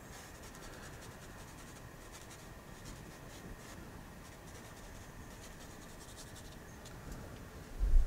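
Faint scratchy strokes of a paintbrush dragging oil paint across canvas. A loud low thump near the end.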